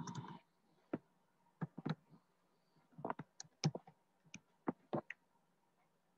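Irregular clicking at a computer keyboard, about a dozen sharp clicks, some in quick pairs, after a brief rustle at the very start.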